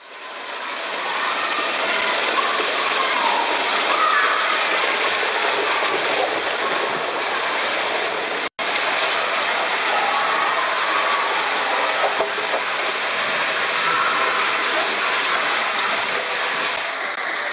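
Water rushing through an enclosed water-slide tube as a rider slides down it, a steady loud rush that breaks off for an instant about halfway through.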